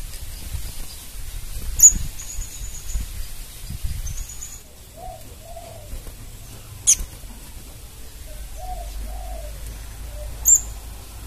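Crimson sunbird (sepah raja) calling: three sharp, very high chirps about two, seven and ten seconds in, with thin high whistled notes between the first two. Softer low, cooing call notes run in the background from about the middle on.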